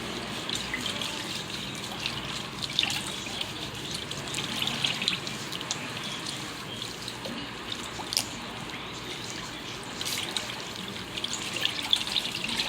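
Water running and splashing in a pedicure foot basin, a steady trickle with small splashes throughout.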